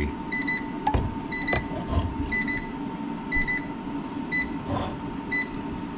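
Electronic alarm beeper sounding short high beeps, in pairs about once a second, over a faint steady electronic whine, with a couple of sharp clicks about a second in.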